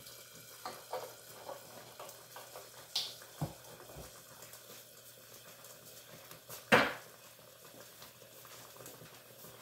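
Chicken breast simmering in broth in a covered frying pan, a low steady bubbling hiss, with a few sharp clicks scattered through it, the loudest about seven seconds in.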